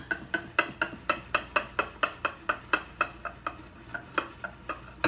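A whisk clicking rapidly against the side of a glass mixing bowl, about four or five strokes a second, as cream is whisked into squash puree to thicken it. The strokes thin out near the end.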